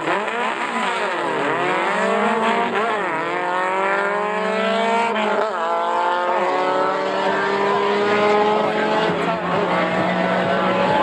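Two VW drag cars, a Type 3 and a Beetle, launch and accelerate hard down the strip. Engine pitch climbs, drops back at each of several gear changes, and climbs again.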